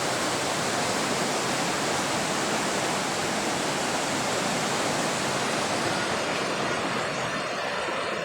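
Swollen floodwater rushing past in a steady, even rush, easing slightly near the end.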